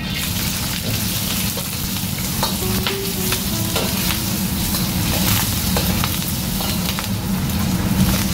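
Sliced onion, carrot and zucchini sizzling as they are stir-fried in a hot carbon-steel wok, with a metal ladle scraping and clinking against the wok now and then.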